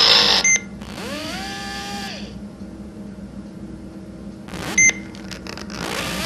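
A loud rushing noise cuts off with a short electronic beep. A rising whine then climbs and levels off before fading, and a second short beep comes about four seconds after the first, over a low steady hum.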